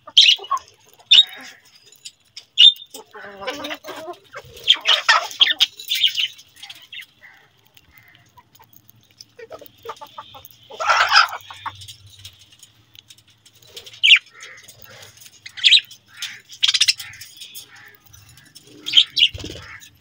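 Budgerigars chirping and chattering in short, scattered calls, with busier bursts of chatter about a quarter and half way through.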